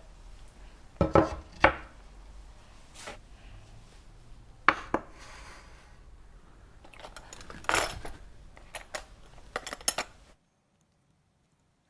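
Dishes and utensils clattering: a string of separate knocks and clinks, the loudest about a second in. The sound cuts out abruptly near the end.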